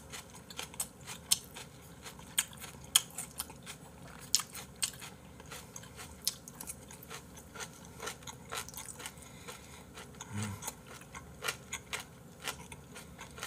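Close-miked chewing and crunching of food, with many small irregular mouth clicks and smacks. A short low hum about ten seconds in.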